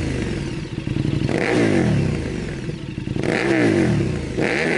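KTM 1290 Super Duke R's 1301 cc V-twin, fitted with a titanium aftermarket exhaust, revved three times while parked. Each blip rises quickly and falls back toward idle.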